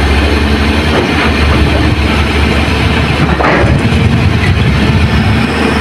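Diesel dump truck engines running with a steady low drone as a loaded truck pulls away up a dirt track, with a brief rush of noise about three and a half seconds in.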